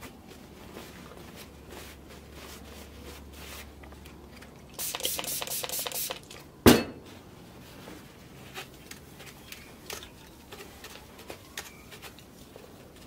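Trigger spray bottle pumped in a quick run of sprays about five seconds in, wetting a cleaning cloth, followed by a single sharp knock, the loudest sound, as the bottle is set down on the bench. After that, a cloth rubs over a fuser roller with faint scattered ticks.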